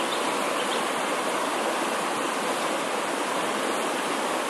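A river running high after heavy rain, its water rushing steadily.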